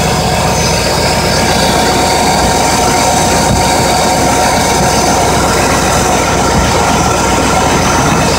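LT1 5.7-litre V8 idling steadily shortly after a cold start, heard up close in the engine bay.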